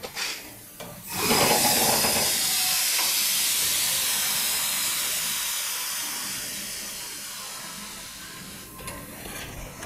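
Air-ride suspension airbags being inflated: compressed air hisses into the bags, starting suddenly about a second in and fading slowly over about seven seconds as the truck rises to full ride height.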